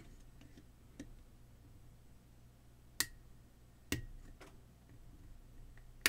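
A few sharp clicks and taps from a small plastic LED work light being handled, its circuit board and housing shifting under the fingers with alligator clip leads attached. The clicks are spaced out, one to two seconds apart, and the loudest comes near the end.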